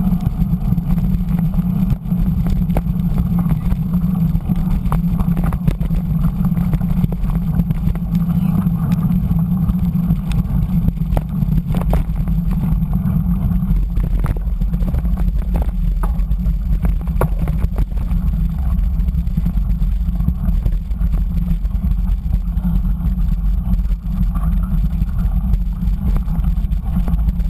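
Muffled low rumble of wind and road vibration on an action camera riding on a mountain bike rolling along a wet gravel-and-dirt road, with scattered clicks and knocks from the bike rattling over the stones.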